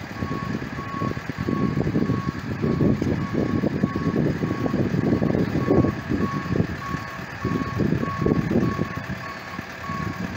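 Warning beeper of a self-propelled boat hoist sounding a steady, evenly spaced beep, over a loud, gusty low rumble.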